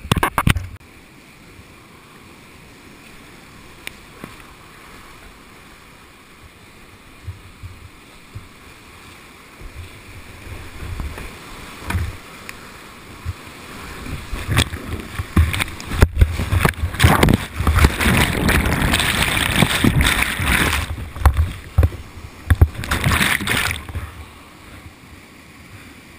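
Whitewater rapids heard from a kayak running them: a steady rush of fast water at first, building about halfway through into loud churning and splashing, with sharp splashes and knocks against the boat and paddle. The noise drops back to a steady rush near the end.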